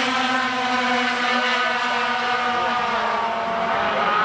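Engines of several sport trucks running on the track together: a steady, layered engine drone that dips in pitch about three seconds in and rises again near the end.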